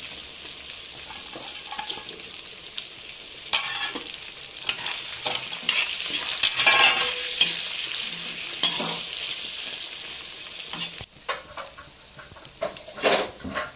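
Chicken pieces sizzling as they fry in a pan while a spatula stirs them, scraping against the pan. The sizzle cuts off suddenly about eleven seconds in, leaving a few scrapes and knocks.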